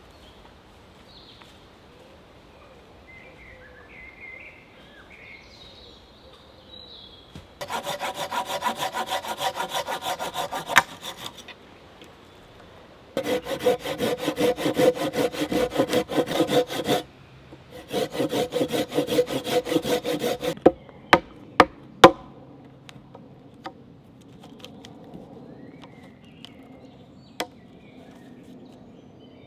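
Hand saw cutting through wood in three bouts of quick strokes, with a few sharp wooden knocks just after. Birds chirp faintly before the sawing starts.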